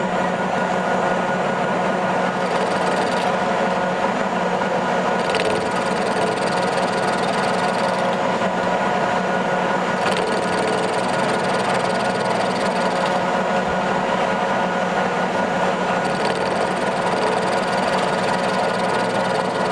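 Metal-turning lathe running at a steady speed, its geared headstock giving a steady whine made of several tones, while a radius tool faces the end of a fuel hose fitting. A fainter high hiss comes and goes on top every few seconds.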